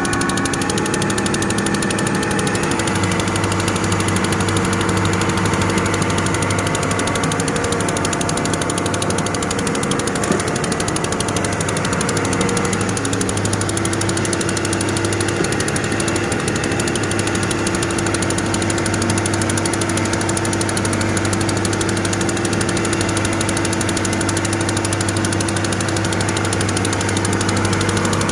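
Excavator's diesel engine running steadily under work, with a single short knock about ten seconds in.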